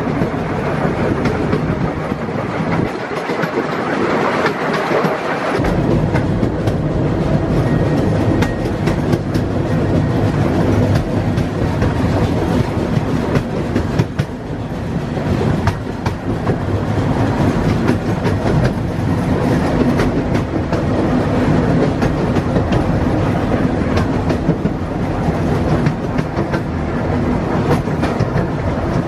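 Open passenger car of a narrow-gauge park steam railway running along the track: a steady rumble of wheels on rails, with repeated clicking over the rail joints.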